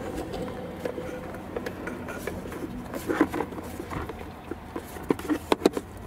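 Light, irregular plastic clicks and taps as a hand handles and fits a plastic cover over a wire inside a Toyota RAV4's plastic centre console bin. A cluster comes about three seconds in, and a few sharper clicks come near the end.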